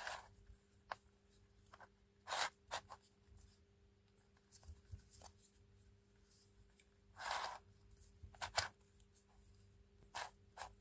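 Layers of a plastic sloppy cube twisted by hand: a handful of short plastic clicks and scrapes as faces turn, spaced out with pauses between moves.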